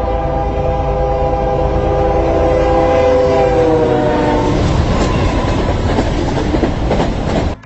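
Locomotive air horn sounding one long held blast, fading out about four and a half seconds in as the heavy rumble and rail clatter of the passing train take over. The sound cuts off suddenly near the end.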